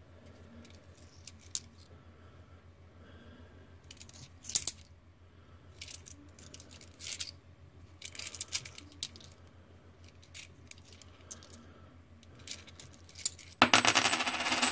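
Australian 20-cent coins clicking and clinking against each other as they are handled. There are scattered light clicks at first, then a louder, dense jangle of coins for about a second near the end.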